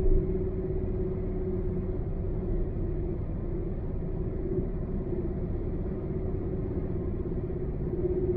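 Car cruising on a highway: steady road and engine rumble with a constant low hum, and a brief bump at the very start.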